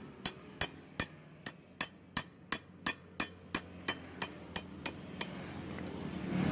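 A run of evenly spaced sharp clicks, about three a second, stopping after about five seconds. They are the kind of clicks made by a small tool being worked.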